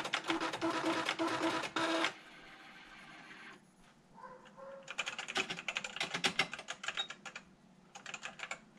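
Panasonic Penwriter electronic typewriter at work: for about two seconds its mechanism clatters rapidly with a pulsing hum while hands rest off the keys, followed by a brief soft whirr. About halfway through comes a flurry of keystrokes on its keyboard, and a few more near the end.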